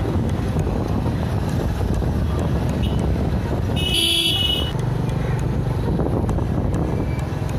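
City street traffic, a steady rumble of engines and road noise. A vehicle horn honks once, briefly, about four seconds in.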